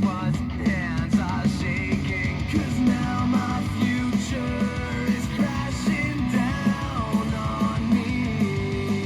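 Heavy metal music with electric guitar and a steady driving beat, played loudly through a pair of small vintage JVC speakers rated 5 watts (8 watts max).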